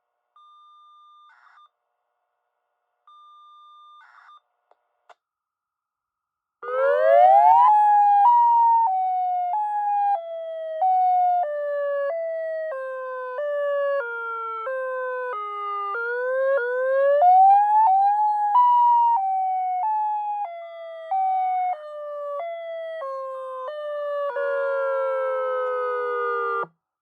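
Electronic outdoor warning siren sounding its alternate wail: a rising start, then two tones switching back and forth about once a second while the pair slides slowly down, back up and down again, cutting off suddenly near the end. Before it come two short, faint tone bursts, the radio activation signal.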